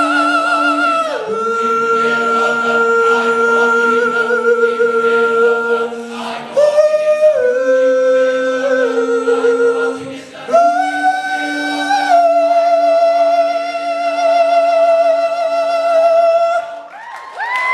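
All-male a cappella choir singing the wordless closing chords of a song. The chords are long and held, with vibrato in the top voice, and change several times. The last chord is held for about six seconds and cut off together, with audience cheering just starting at the very end.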